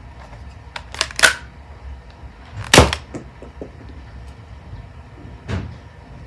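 Plastic clicks and clacks of a Nerf foam-dart blaster being handled and reloaded: two sharp clicks about a second in, the loudest clack near the middle, and a softer one near the end.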